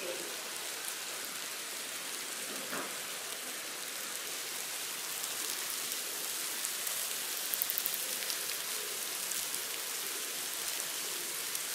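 Hundreds of large ants crawling over a crumpled plastic bag, their feet making a steady fine crackling hiss on the plastic, with a few louder ticks about two-thirds of the way through.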